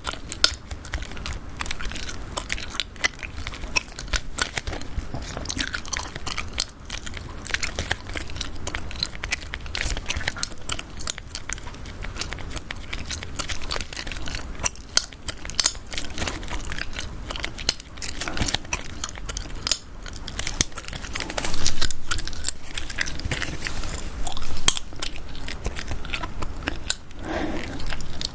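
Gum chewed close to the microphone: a continuous run of wet clicks and smacks.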